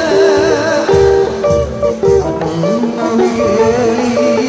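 Loud music for a Sundanese benjang parade. Held melodic notes step from pitch to pitch under a wavering upper line, with low beats beneath.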